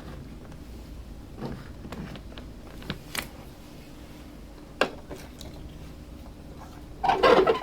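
Small plastic toy pieces being handled: scattered clicks and taps, then a louder clattering rustle near the end.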